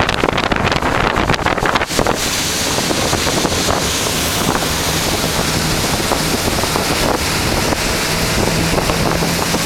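Motorboat under way: wind buffeting the microphone, then from about two seconds in a steady rush of wind and water spray off the hull, with a low engine hum underneath.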